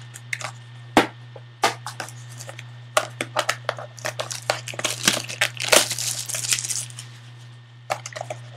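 Foil trading-card pack wrapper crinkling as the pack is torn open and the cards slid out and handled, with many sharp clicks and rustles. There is a denser burst of crinkling a little past the middle. A steady low hum runs underneath.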